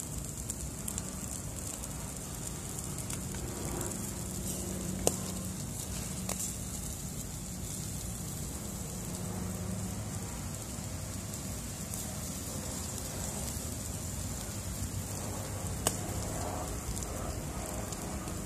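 Whole fish sizzling in a wire grill basket over hot charcoal: a steady hiss with occasional sharp pops and crackles, the loudest about five seconds in and another near the end.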